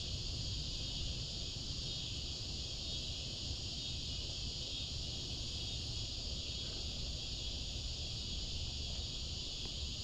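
Steady chorus of crickets and other insects, a high even trill that does not change, over a low steady rumble.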